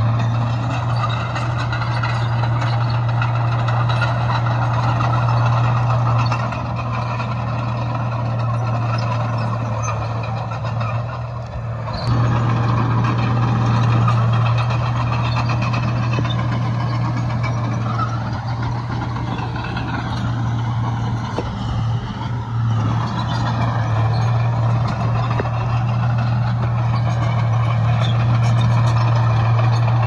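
Heavy earthmoving machinery's diesel engine running steadily, with a short dip in level about twelve seconds in.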